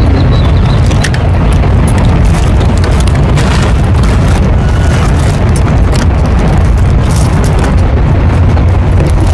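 Wind buffeting the microphone: a loud, steady low rumble, with a few faint clicks over it.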